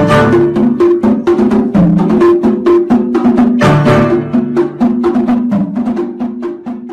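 Music with a fast, even percussive beat of sharp wood-block-like clicks over pitched notes.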